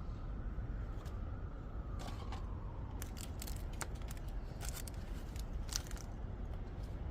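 Scattered sharp clicks and light scrapes, bunched between about three and six seconds in, over a steady low rumble.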